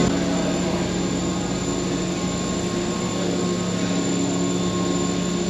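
Gondola cable car station machinery running with a steady hum and several fixed tones, heard from inside a cabin as it rolls slowly through the station beneath the drive wheel.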